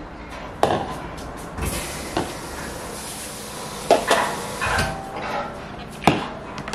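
Plastic kitchenware being handled at the counter and sink: a plastic food tub and colander set down and moved, giving four sharp knocks, the loudest near the middle and near the end. Between the first knocks, water rushes from the tap for a couple of seconds as the old yeolmu kimchi is rinsed.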